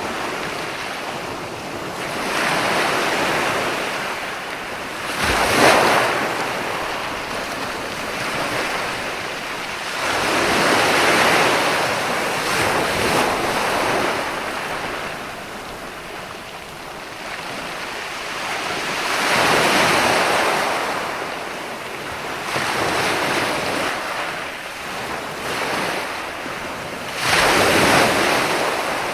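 Ocean surf: waves breaking and washing in a continuous hiss that swells and fades every few seconds, with a sharper crash about five and a half seconds in and another loud surge near the end.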